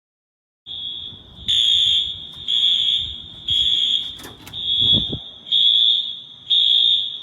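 Building fire alarm sounding, starting just under a second in: a high, piercing tone that pulses about once a second. The alarm is going off for a building-wide fire alarm test.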